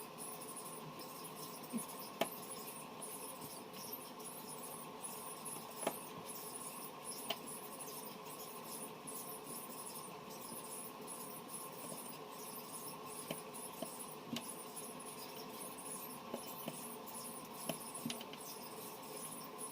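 Scattered small sharp clicks and taps, a few seconds apart, over a steady background hiss, from hand tools and parts being handled in phone repair work.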